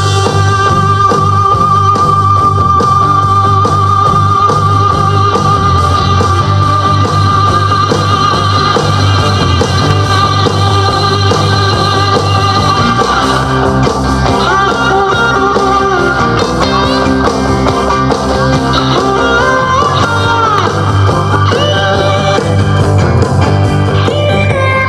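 Heavy blues song with singing and guitar, played through a JBL Charge 5 portable Bluetooth speaker; a long wavering held note carries the first half, then the melody moves on over a steady bass line.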